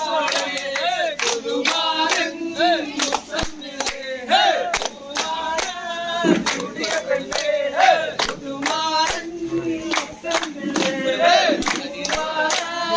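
A group of men singing together in a loud chorus, with rhythmic hand-clapping throughout.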